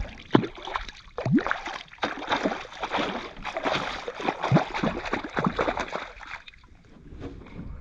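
Water splashing and gurgling at the side of a canoe, in irregular bursts, as a just-caught brook trout thrashes at the surface; it dies down about six and a half seconds in.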